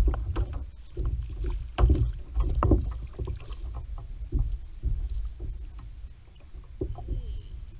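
Scattered knocks and clicks of hands and gear on a plastic fishing kayak, over a steady low wind rumble on the microphone.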